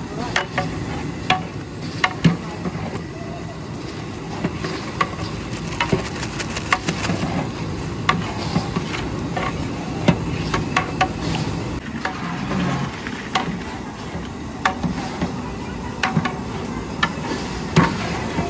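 A long metal ladle stirring dal in a large aluminium pot, scraping and knocking against the pot in many irregular sharp clicks over a steady background hiss.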